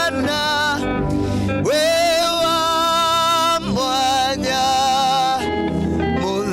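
Gospel worship music: a voice sings long held notes with vibrato over steady instrumental backing, sliding up into a higher held note about two seconds in.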